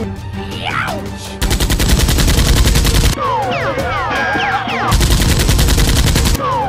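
Rapid machine-gun fire sound effect, dubbed onto two oversized toy foam-dart blasters, in two bursts of about a second and a half each, one starting about a second and a half in and the other about five seconds in. Background music with sweeping effect sounds plays between the bursts.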